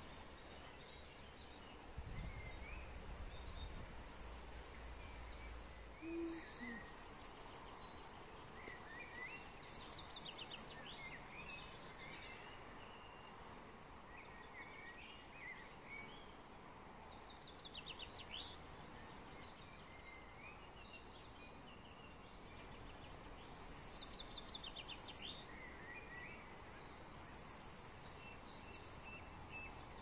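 Several songbirds singing and calling over a steady background hiss, with rapid trills and buzzy phrases recurring throughout. A low rumble runs for a few seconds near the start.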